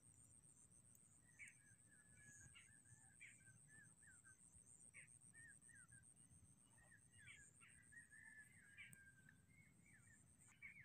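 Faint small birds chirping, many short call notes and quick glides in a loose scatter. Under them runs a faint, steady high-pitched tone with a rapid pulse.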